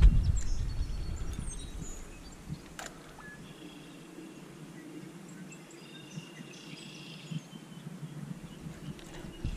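Birds calling with short, repeated chirps over a quiet outdoor background. A low rumble on the microphone fades over the first two seconds, and a single click comes about three seconds in.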